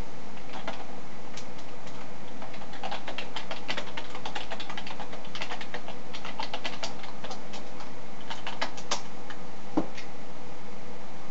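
Computer keyboard typing: quick irregular runs of keystrokes, then a single louder click near the end.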